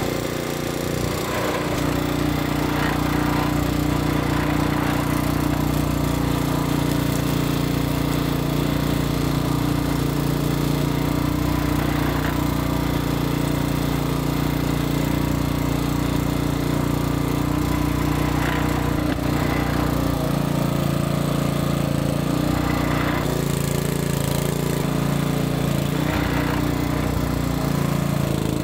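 Sugarcane juice press machine running steadily with a continuous motor hum; its note changes about twenty seconds in.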